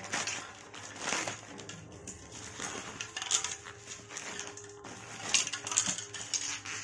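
Plastic courier mailer bag crinkling and rustling as hands tear it open and pull out a bubble-wrapped package, with several louder crackles.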